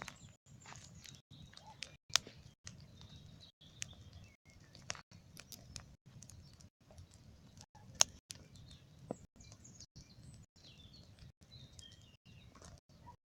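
Bonfire of heaped brush burning and crackling, with irregular sharp pops from the burning wood; two loud pops stand out, about two seconds in and about eight seconds in.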